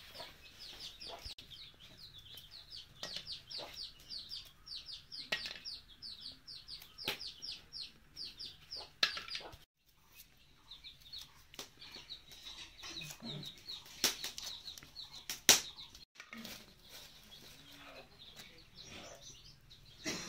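Chicks peeping rapidly and steadily, several high peeps a second, with a short break near the middle. Occasional sharp knocks and clatter, the loudest about three quarters of the way through.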